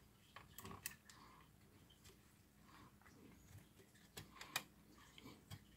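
Faint clicks and scrapes of fingers picking at an SD card in its metal slot on a circuit board, a few small ticks early and a quicker cluster about four seconds in, otherwise near silence.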